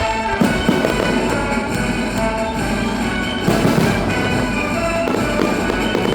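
Music playing, with fireworks going off: one burst about half a second in and a louder one about three and a half seconds in.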